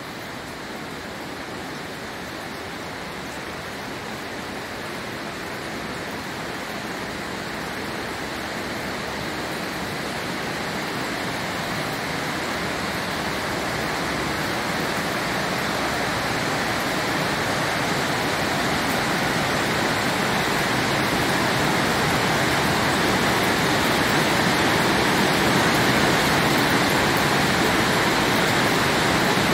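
Steady noise of water flowing and cascading inside a limestone cave, growing gradually louder.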